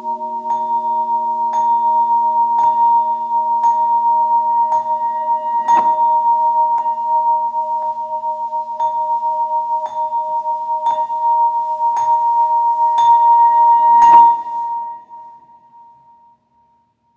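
Marimba notes struck with mallets about once a second over steady, held electronic tones, with a lower held pair dropping out about five seconds in. A final, loudest strike comes about fourteen seconds in, and everything rings away to silence over the next two seconds.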